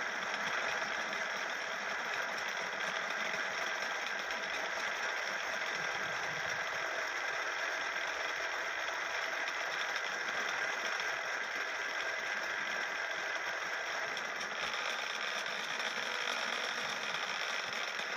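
Wood-turning lathe running steadily, a constant mechanical whir that does not change.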